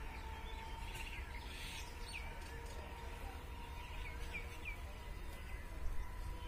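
Birds chirping in short bursts of a few quick calls, over a steady low rumble.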